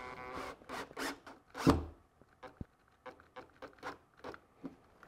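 Cordless drill/driver running briefly at low speed as it finishes driving a screw into the boat's fiberglass. It is followed by a run of short scrapes and rattles, then faint ticks, as the plastic deck-light fixture and its screw are handled.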